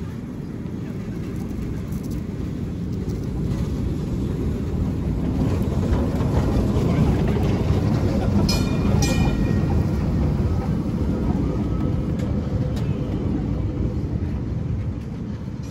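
Vintage electric tram running past on rails: a low rumble of wheels and motor that builds as it approaches, is loudest about halfway through, then fades as it moves away. As it passes alongside there are two short, high metallic rings close together.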